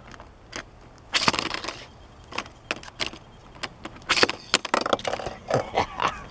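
Hot Wheels die-cast toy car being handled and run on a track: scattered sharp clicks and knocks, with two short clattering rattles about a second in and about four seconds in.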